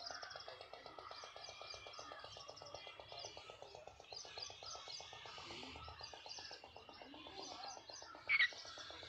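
Many small birds chirping and twittering, over a fast, even pulsing lower down. One louder, sharp call stands out about eight seconds in.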